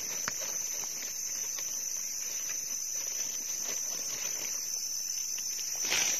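A small knife scraping and digging into soil and dry leaf litter around mushrooms, giving scattered light scratches and rustles, with a stronger rustle near the end as the clump is lifted. Behind it an insect's high drone holds on one pitch.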